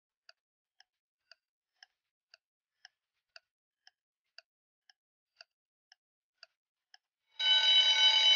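Countdown timer sound effect: faint clock ticks about twice a second, then near the end a loud alarm ring as the count reaches zero, signalling time is up.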